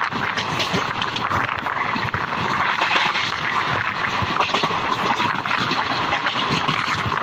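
Passenger train coach running at speed, heard from the open doorway: a steady rush of wind on the microphone over the rumble and clatter of wheels on the rails.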